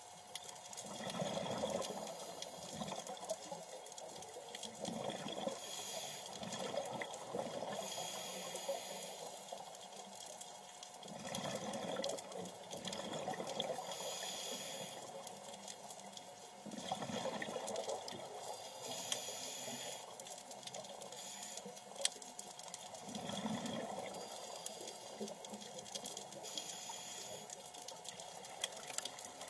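Scuba diver's regulator breathing underwater, heard through the camera housing: a bubbly gurgle of exhaled air about every six seconds, each followed by the hiss of an inhalation, about five breaths in all.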